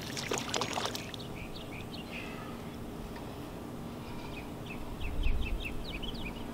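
A bird chirping in short quick notes, sparse at first, then in a fast run near the end. A few short sharp noises in the first second and a low rumble about five seconds in.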